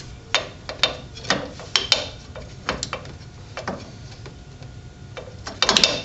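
Rear drum brake adjuster on a 2001 Ford Focus clicking: a run of irregular sharp clicks, with a quick cluster near the end. The adjuster has shifted and will need readjusting.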